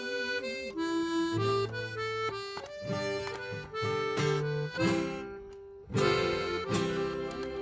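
Accordion and acoustic guitar playing an instrumental break in a sertanejo modão song, with the accordion carrying the melody in held notes over the plucked guitar. There is a short lull about five seconds in, then both come back in strongly.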